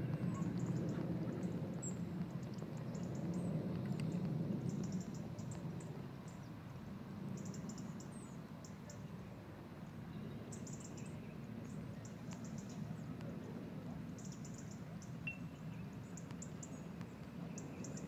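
Open-air evening ambience: high chirping in short runs of about a second, repeating every few seconds, over a low rumble that is louder in the first five seconds and then drops.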